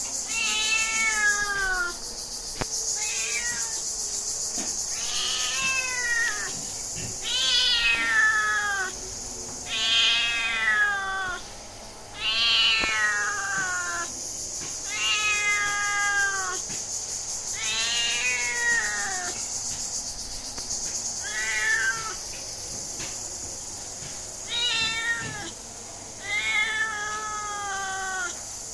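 A cat meowing over and over, about a dozen drawn-out calls that fall in pitch, one every couple of seconds, with a steady hiss behind them.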